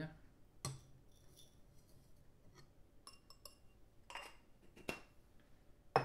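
Scattered light clinks and taps of a stainless-steel Porlex mini hand coffee grinder being handled and its parts fitted back together, with a few small ringing metal clinks. It ends with a sharp knock as the grinder is set down on the counter.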